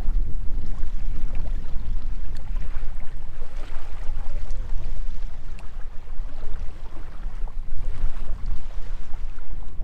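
Wind blowing across the microphone on an open beach, a continuous low rumble that rises and falls in gusts.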